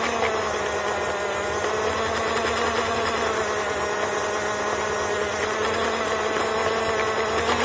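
Small electric motor of a battery-powered toy train locomotive running along the track: a steady whine that dips and rises a little in pitch as it goes.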